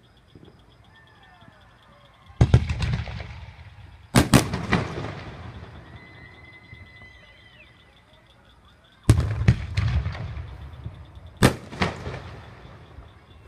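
Fireworks going off: four loud bangs in two pairs, a couple of seconds apart, each trailing off in crackling and a low rumbling echo. Faint whistles sound between the bangs.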